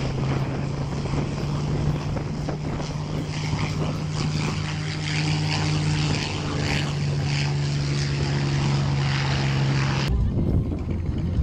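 P-51 Mustang's V-12 piston engine at full power on its take-off run: a loud, steady, deep engine drone with propeller noise. About ten seconds in it cuts off abruptly to a quieter, different engine sound.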